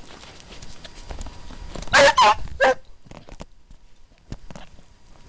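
Scent hound barking three times in quick succession about two seconds in, amid crackling footsteps through scrub.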